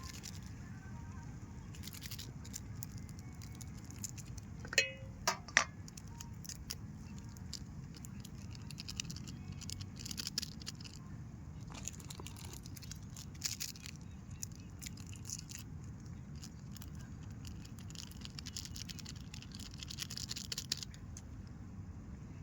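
Camp cooking: a metal utensil clinks sharply against a cooking pot three times about five seconds in, with a brief metallic ring. Scattered small clicks and rustles follow over a steady low rumble.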